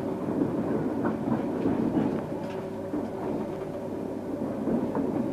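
Running noise inside a moving electric passenger train: a steady rumble of wheels on rail, with a few faint clicks.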